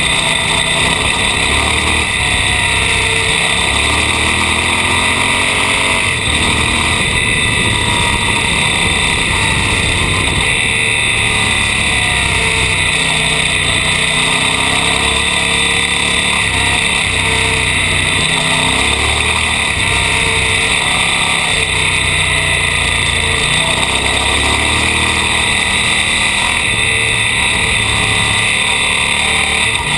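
Off-road vehicle engine under way on a dirt trail, its pitch rising and falling again and again as it revs up and eases off, under a steady hiss of wind and tyre noise on the microphone.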